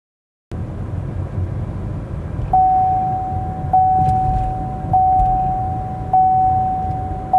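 A vehicle's warning chime dings over and over, about once every 1.2 seconds: a single tone that starts about two seconds in, sounds sharply and fades between strokes. Under it runs a low, steady rumble.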